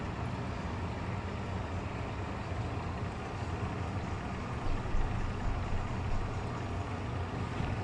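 A steady low hum with no distinct events.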